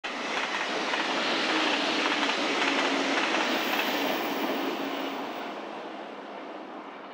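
JR Kyushu 883 series 'Sonic' limited-express electric train passing at speed, a loud rush of wheel and rail noise that fades away after about five seconds as the train recedes.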